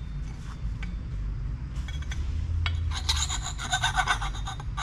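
A hand file rasping across a small metal part in quick back-and-forth strokes. It comes in two runs in the second half. The file is cutting through the surface to check whether the part is solid brass rather than plated.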